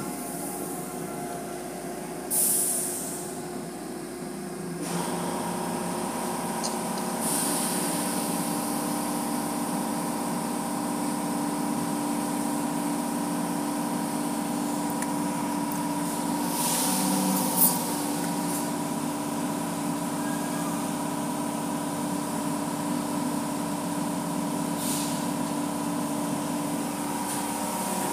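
Automatic car wash equipment running: a steady hum of pumps and motors that grows fuller about five seconds in, broken by several short hisses of spraying water, the loudest about two seconds in, and one sharp click in the middle.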